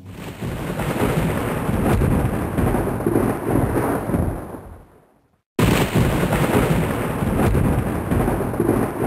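Thunder: a rolling rumble with a high hiss that swells up and fades out. After half a second of silence a second peal starts abruptly, about five and a half seconds in.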